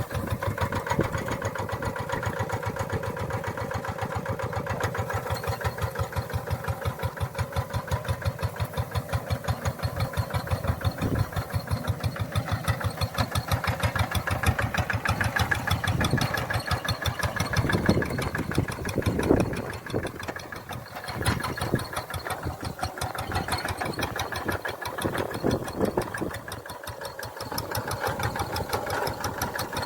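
Tractor engine running at a steady idle with a rapid, even beat of about ten pulses a second. For several seconds past the middle the beat turns uneven, with some louder strokes, then settles again.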